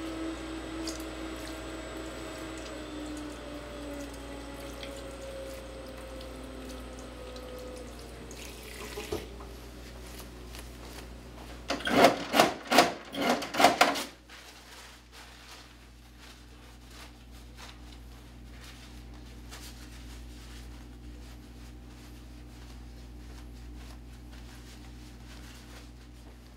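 A tap running into a restroom washbasin, stopping about nine seconds in. About twelve seconds in comes a quick run of loud clacking pulls on a wall-mounted paper towel dispenser, the loudest sound, followed by faint rustling of paper towels as hands are dried.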